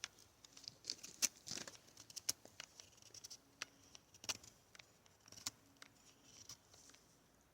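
A knife blade working wood, faintly: scattered small clicks and ticks at uneven intervals with a light scraping hiss.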